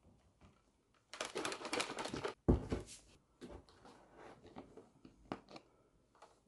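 Handling noises in a small room: about a second and a half of dense rustling, a dull thump, then scattered light clicks and knocks.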